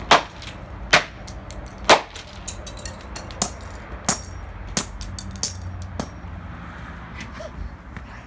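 Hammer blows on the broken pieces of a Dreamsky DS206 alarm clock radio: three hard strikes in the first two seconds, then a run of lighter knocks about every two-thirds of a second.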